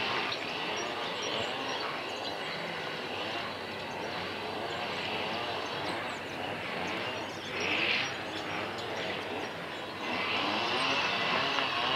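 Steady outdoor background noise, with a brief swell about eight seconds in and a louder stretch near the end.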